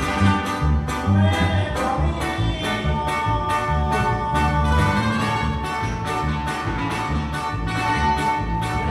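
Regional Mexican dance music: guitars and bass on a steady beat of about three strokes a second, with a held string melody over it.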